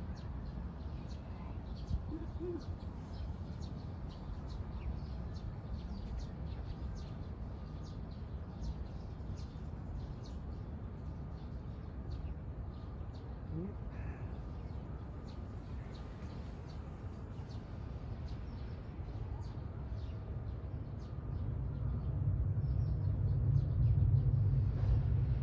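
Outdoor ambience: small birds chirping on and off over a steady low rumble, which swells louder in the last few seconds.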